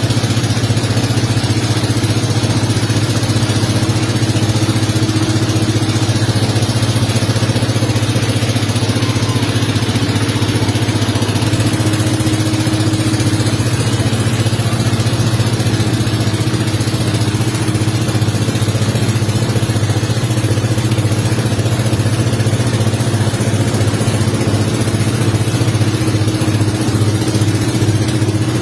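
Motorboat engine running steadily at an even pitch, with a constant hiss over it.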